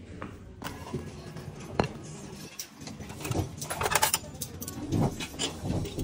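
Hard-soled shoes stepping on a tiled floor, with a run of metal-and-china clinks from canteen dishes and serving utensils about midway through.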